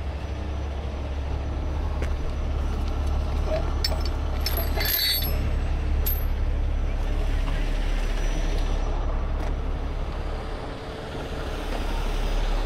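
Heavy rotator tow truck's diesel engine idling steadily, a low rumble, with a brief hiss about five seconds in.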